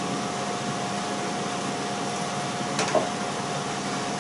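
Kitchen cooker hood extractor fan running steadily: an even airy rush with a thin steady hum. A light click about three seconds in.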